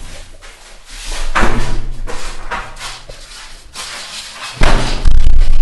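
Loud knocks and rubbing noises with a heavy low rumble, in two spells: one about a second in and one near the end.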